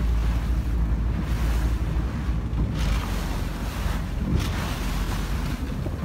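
Wind buffeting the microphone as a low rumble over choppy water, with waves lapping and splashing; the hiss of wind and water swells and fades every second or so.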